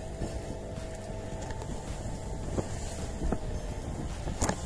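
Small fishing boat's motor running steadily underway, with wind buffeting the microphone and water rushing along the hull. A sharp knock comes near the end.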